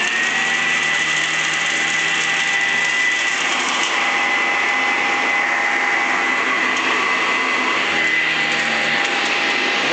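Eureka ESP commercial upright vacuum cleaner running at full speed with a steady high whine, vacuuming up bird seed.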